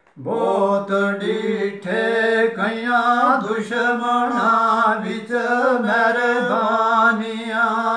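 A solo male voice singing a Gojri bait (folk couplet) unaccompanied, in a drawn-out chanting style: a steady held low note with ornamented phrases that rise and fall above it, after a short breath at the start.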